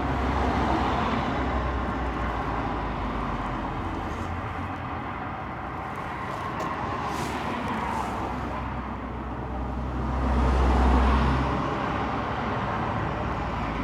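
Steady low rumble of road vehicle noise that swells about ten seconds in, as if a vehicle passes close by, with a few faint clicks.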